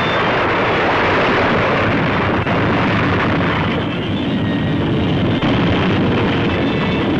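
Steady, dense rumbling roar of Paricutín volcano erupting at its crater, with two brief dips about two and a half and five and a half seconds in.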